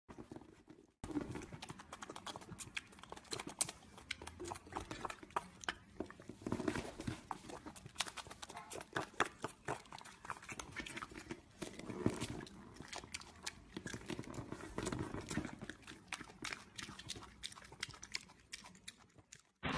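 Piglet chewing and smacking its wet mouth right at the microphone: a fast, irregular run of wet clicks and smacks that starts about a second in, louder in a few stretches.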